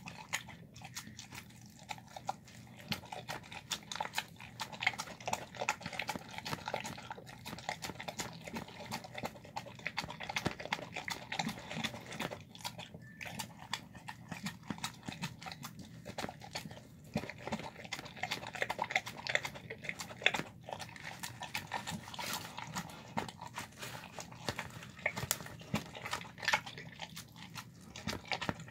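Dog eating a soft mix of chicken leg meat, pinto beans, white rice and tendons from a plastic tub: continuous rapid wet chewing and smacking, with many sharp clicks.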